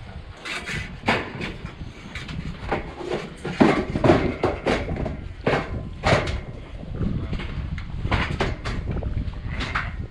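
Irregular knocks and clanks of sheep yard gates and panels as ewes are worked through the yards, over a low rumble.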